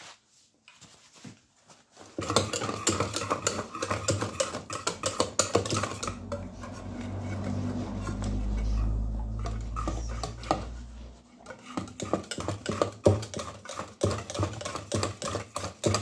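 Wire whisk beating thick custard cream in a stainless steel pot, the wires clicking rapidly against the pot's sides as white chocolate is whisked in to melt. The whisking starts about two seconds in, and a low rumble runs under it for a few seconds in the middle.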